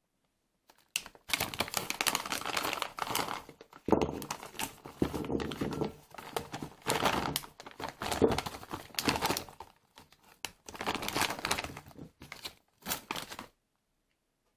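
Plastic packaging bag of tteokbokki rice cakes crinkling as it is handled and tipped, with the rice cake sticks sliding out and dropping into a ceramic bowl. The rustling comes in bursts with short pauses and stops about a second before the end.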